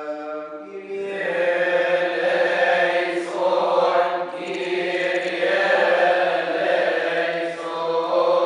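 Coptic Orthodox liturgical chanting: voices chant in long, held melodic lines, fuller and louder from about a second in.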